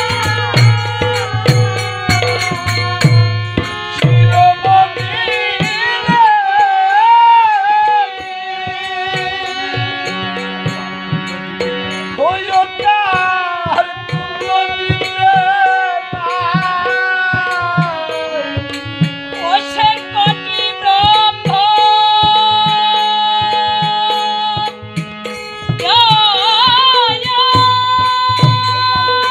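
Bengali devotional folk music: tabla strokes over a steady drone, with a gliding, ornamented melody line above. The tabla drops out for most of the middle and comes back near the end.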